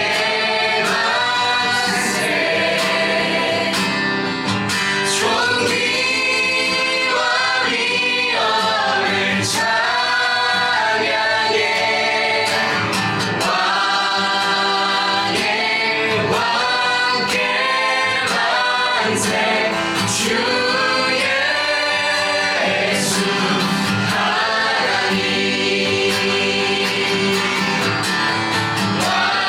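A worship band and group of singers performing a contemporary Christian worship song, voices singing together over the band's accompaniment.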